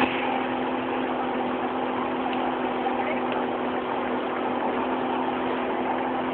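Motorboat engine running at a steady speed, an even hum over a constant rush of noise.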